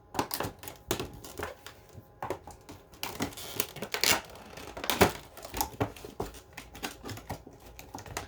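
Cardboard packaging being handled and cut open: irregular clicks, knocks and crinkling, with a longer scraping, tearing stretch about three seconds in.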